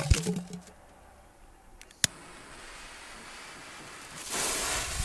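Rustling handling at the start, then one sharp click as a jet lighter is sparked about two seconds in, followed by the steady hiss of its flame, which grows louder near the end.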